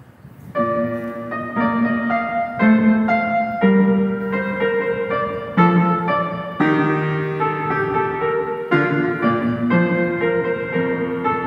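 Slow piano music, with chords or notes struck about once a second.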